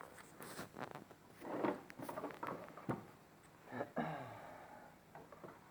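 Plastic dashboard trim of a Nissan Murano Z52 being handled during reassembly: scattered light clicks and taps, with a few brief rustling scrapes.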